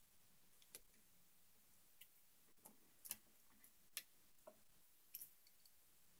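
Faint, irregular small clicks, about eight of them: a screwdriver and wire working against the terminal screw of a new wall light switch as a wire is tightened under it.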